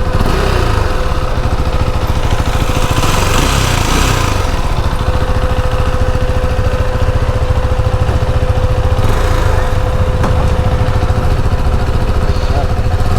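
KTM Duke 390's single-cylinder engine running in neutral, with a brief swell about three seconds in. It carries a rattle like a loose nut, which the owner suspects comes from the chain tensioner.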